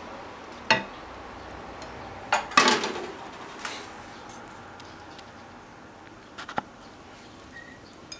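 Kitchenware clinking and knocking: chopsticks and a frying pan tapping against a ceramic bowl while fried tofu is plated. A single click about a second in, a louder cluster of clatter a couple of seconds later, and a pair of light clicks near the end.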